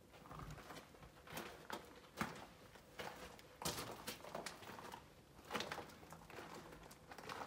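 Footsteps crunching on loose railway ballast, irregular steps of about one or two a second, a few of them louder than the rest.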